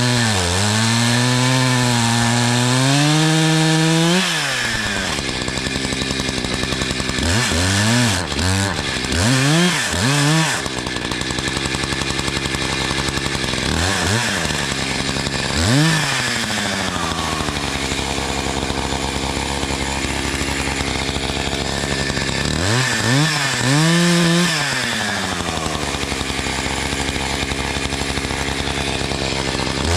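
Two-stroke chainsaw cutting into a tree stump, its engine pitch dropping under load and climbing again as it is throttled up and eased off several times, with spells of lower, steadier running in between.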